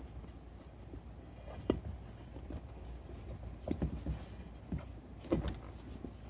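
Faint handling noises as a rubber inner tube is worked inside a wheelbarrow tire: a few scattered short knocks and rubs over a low steady hum.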